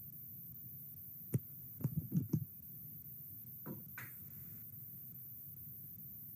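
A few soft taps over a low steady hum: one about a second and a half in, a quick run of four around two seconds, and two fainter ones near four seconds.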